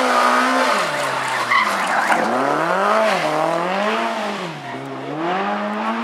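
Rally car engine revving hard as it powers through a corner and away. The engine note climbs and drops sharply several times as it changes gear, over a hiss of tyre and road noise.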